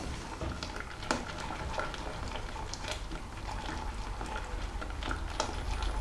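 Wire balloon whisk stirring vanilla bean paste into hot milk and cream in a metal saucepan: a liquid swishing with many light clicks of the wires against the pan.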